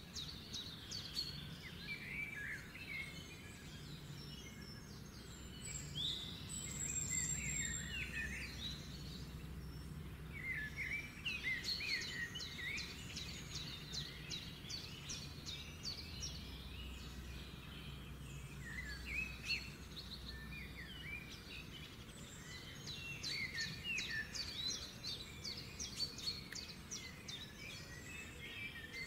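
Birds chirping and singing in overlapping calls and quick trills, coming in bursts, over a steady low hum.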